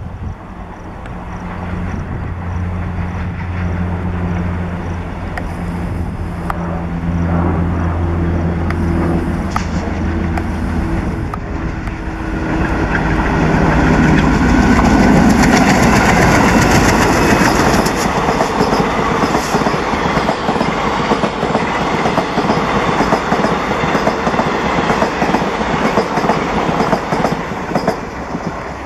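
WDM-3A diesel locomotive running with a steady low engine drone that rises in pitch briefly, then the train passes close, its wheels clattering over the rail joints, loudest about halfway through.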